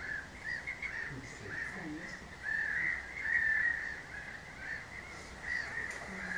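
Barnacle geese calling: many short, high calls overlapping, one after another, as from a flock.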